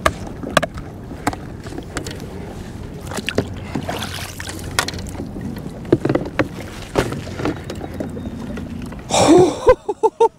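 Hard plastic fish measuring board knocking and clattering against the kayak's deck and fittings in a string of short sharp knocks, over water lapping at the hull. About nine seconds in, a burst of splashing as the weakfish thrashes in the landing net.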